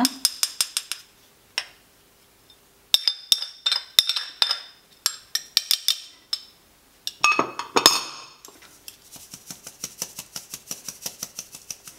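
Small metal mesh sieve with a teaspoon in it being tapped to shake powdered seasonings into a glass bowl: runs of light metallic clinks, with a louder rattle about seven seconds in, then quick even ticks near the end.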